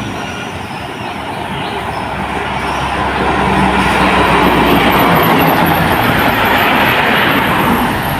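A tour bus driving past close by: its engine drone and tyre noise build over the first few seconds, peak around the middle and ease off near the end.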